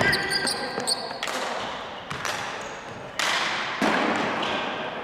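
Ball hockey play on a gym's hardwood floor: several sharp knocks of sticks and the hard ball against the floor and each other, with short high squeaks in the first second, ringing in the large hall.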